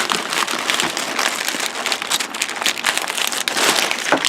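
A mailed package being opened by hand: its packaging crinkling and rustling continuously in many quick crackles.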